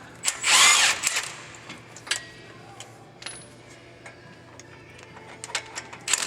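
A power tool briefly spinning out a brake caliper bolt, one burst of just under a second. Light metallic clicks and taps from handling the tool and hardware follow.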